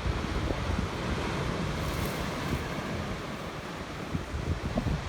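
Storm surf on the sea breaking and washing steadily, with gusts of wind buffeting the microphone.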